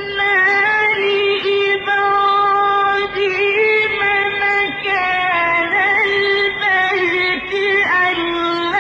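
A solo voice singing long held notes in a high register, ornamented with turns and pitch bends between them.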